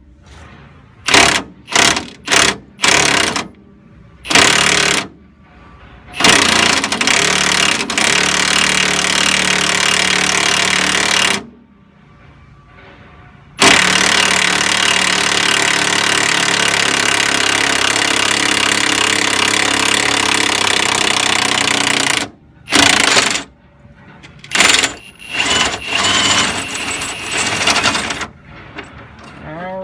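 Impact wrench hammering as it unwinds the nut on a coil-spring compressor's threaded rod, letting the compressed coil spring out. First comes a string of short trigger bursts, then two long runs of several seconds each with a short pause between them, then more short bursts near the end.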